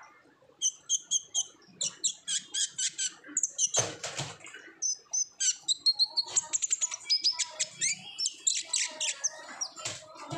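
A kolibri ninja sunbird singing hard: a fast, high-pitched run of repeated chirps and chattering trills, with one short rustle about four seconds in.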